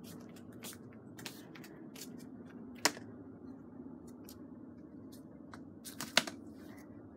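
Scattered light clicks and taps, with two sharper knocks about three and six seconds in, over a low steady hum.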